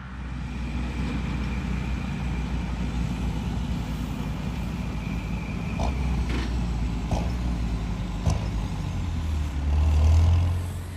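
Tractor engine running steadily while working a McHale round baler, with a few light knocks about halfway through and a louder low rumble near the end.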